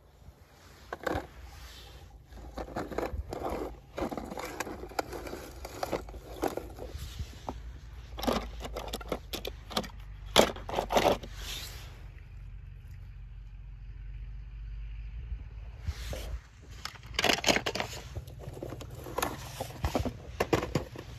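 Close handling of a plastic toy tow truck on dry pine needles and moss: irregular scraping and crackling as moss is pulled off and the needles are disturbed. There is a quieter stretch about two-thirds of the way through, then the crackling resumes.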